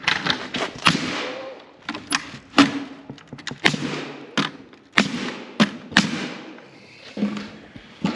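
A series of sharp knocks and thuds, about a dozen spread unevenly over several seconds, from hands-on building work on a coop frame of wood and metal.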